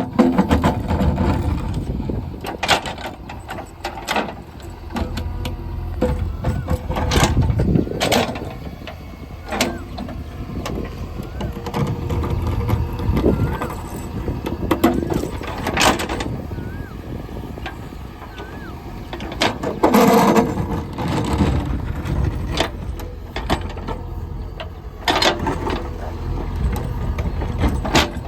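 Diesel engine of a JCB 3DX backhoe loader running under load, with repeated sharp clanks and knocks as the bucket works and shifts stones.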